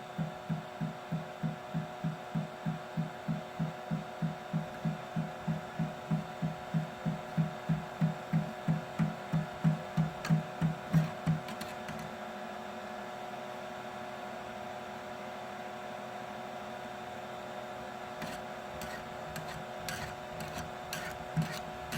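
3D printer extruder knocking in a regular rhythm, about three dull thumps a second, over a steady motor hum; the title puts the knocking down to the extruder being over-tightened. The knocking stops about halfway, leaving the hum and a few light clicks, then starts again at the very end.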